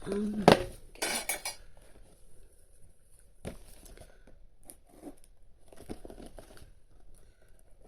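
A doll's toy packaging being handled: a sharp click about half a second in, a short rustle, then scattered light taps and clinks.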